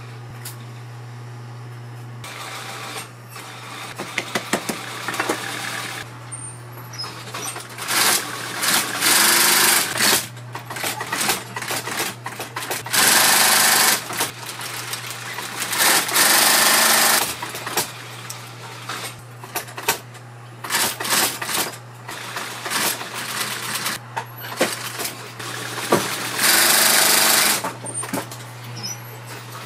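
Industrial sewing machine stitching a leather boot upper in short runs: several bursts of a second or two of rapid needle clatter with pauses between, over the steady hum of its running motor.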